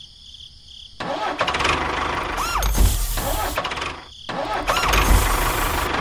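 Tractor engine starting: about a second in it starts up and runs rough with heavy low thuds. It drops out briefly near four seconds, then starts and runs again.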